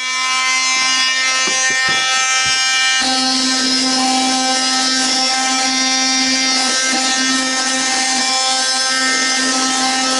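Oscillating multi-tool with a triangular sanding pad running steadily, grinding the fibreglass on the underside of a boat's deck around a hole to key it for laminating. The hum grows fuller and steadier about three seconds in.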